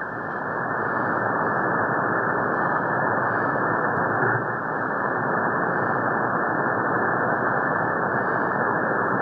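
Steady hiss of shortwave static from a software-defined radio receiver in sideband mode, tuned to an empty spot on the 80-metre band with no station in it. There is a short bump about four seconds in, as the frequency readout jumps.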